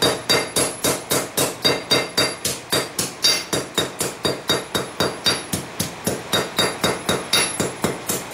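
Hand hammer striking a railroad spike on a steel anvil, a steady run of quick blows at about four a second. Each blow rings briefly off the anvil.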